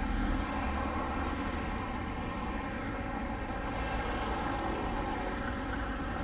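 DJI Phantom 2 quadcopter's motors and propellers, a steady drone made of many even tones over a low rumble.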